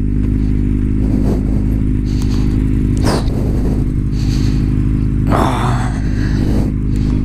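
Kawasaki Z750's inline-four engine running at a steady low idle-like speed as the bike rolls slowly, the pitch holding level throughout. Two short bursts of hiss cut across it, one about three seconds in and a longer one a little past five seconds.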